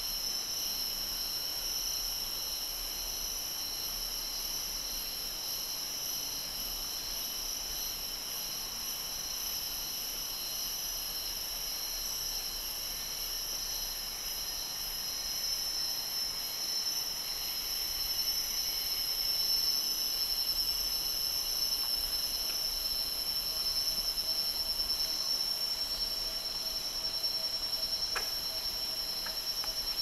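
Steady chorus of tropical forest insects, a continuous high-pitched buzzing layered at several pitches.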